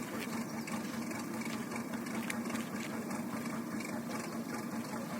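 An engine running steadily at an even speed, a low hum with a constant pitch.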